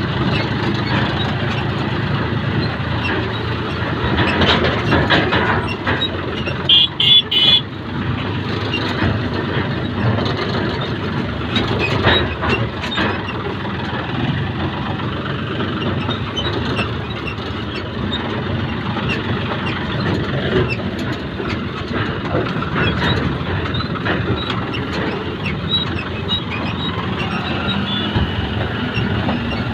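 Kubota engine running steadily under load as it pulls a rickshaw along. Two short high-pitched toots sound about seven seconds in.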